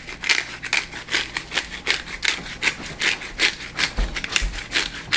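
Hand pepper mill grinding black pepper: a quick, even run of gritty crunching twists, about four a second.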